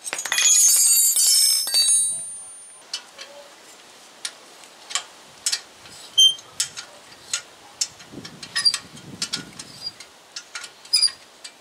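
Metal hand tools clattering and ringing for about two seconds, then a string of light clicks and a few short metallic pings as a bicycle bell is worked loose from the handlebars.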